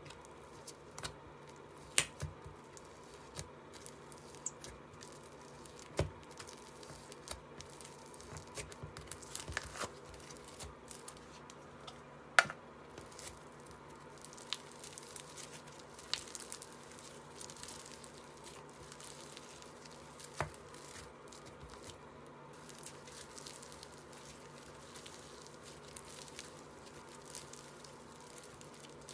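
Slime being squished, stretched and pressed by hand: soft sticky crackling and tearing, with a few sharper pops and clicks scattered throughout.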